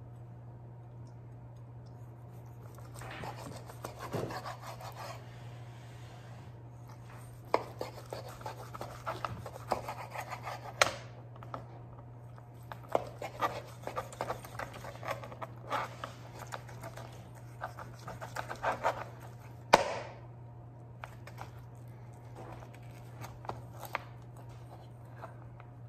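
Knife sawing through a rack of smoked ribs on a plastic cutting board: bursts of scratchy rasping strokes, with two sharp knocks in the middle of the slicing, over a steady low hum.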